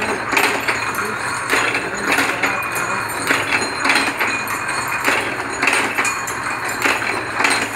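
Dog hook (snap hook) forming machine running: its slides and cams clatter in a repeating cycle of about three metallic clanks every second and a half to two seconds, over a steady motor hum.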